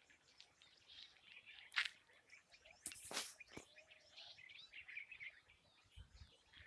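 Birds chirping faintly with short, scattered calls, broken by a few sharp clicks; the loudest clicks come about three seconds in, and a brief low rumble follows near the end.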